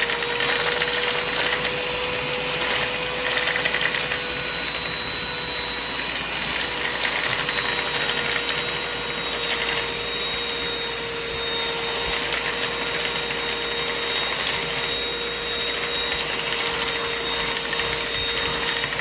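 Shark UltraCyclone cordless handheld vacuum running steadily with a high motor whine over a rush of air, sucking up flour.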